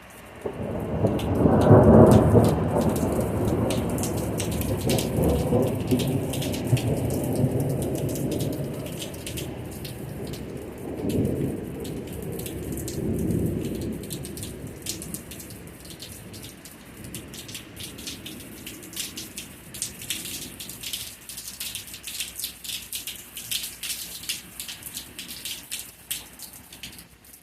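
A long peal of thunder: a low rumble swells up about a second in and is loudest around two seconds. It rolls on in several further swells and dies away over about twenty seconds, over steady rain with the patter of drops growing denser near the end.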